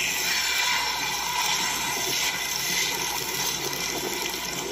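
Water running steadily, starting suddenly about as the sound begins, a continuous splashing rush.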